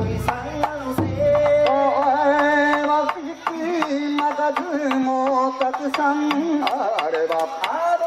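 A man singing a bon odori song into a PA microphone in long, wavering held notes, over steady strikes of a taiko drum.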